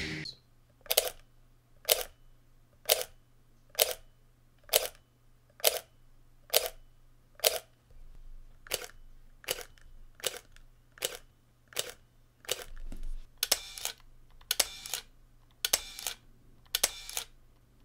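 Leica M240 digital rangefinder firing single shots, its shutter clicking sharply about once a second. About thirteen seconds in, a Leica M9 takes over, also firing single shots about once a second, each shot a pair of clicks close together.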